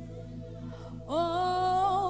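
Live gospel worship music: a held keyboard chord, then about a second in a woman's voice comes in, sliding up into a long held note with vibrato.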